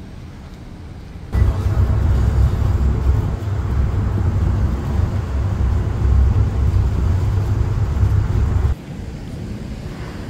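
Songthaew pickup-truck taxi on the move, heard from its open rear: a loud low engine and road rumble that cuts in about a second in and cuts out shortly before the end, with quieter street sound either side.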